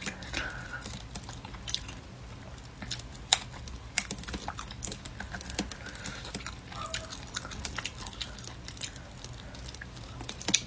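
Close-up chewing and gnawing on tough, dried-out rabbit meat on the bone, with scattered sharp clicks and crunches, the loudest about three and a half seconds in.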